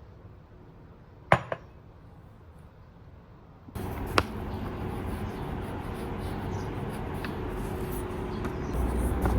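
A sharp clink about a second in, with a lighter one just after. A few seconds later steady, louder background noise with a faint hum starts abruptly, with one more click in it.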